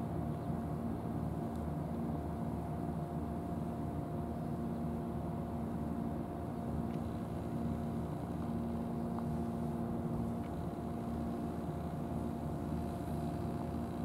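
Steady low mechanical hum with a constant tone, like a motor running at an even speed.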